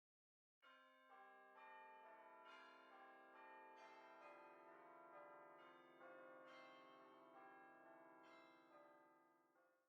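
Faint bells chiming a slow sequence of struck notes, each one ringing on into the next, starting about half a second in and cut off abruptly at the end.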